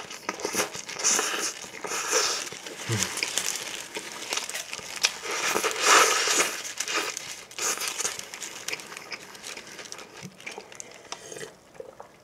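Paper burger wrapper crinkling and rustling in the hands as a burger is held up and bitten into, loudest about halfway and dying down near the end.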